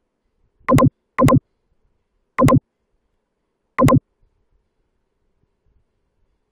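Short electronic click-blips played on mouse clicks, four times: two about half a second apart near the start, then two more spaced over a second apart.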